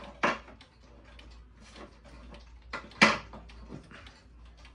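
A few separate knocks and clunks from handling a wooden grandfather clock case and its open hood door: two near the start and the loudest about three seconds in.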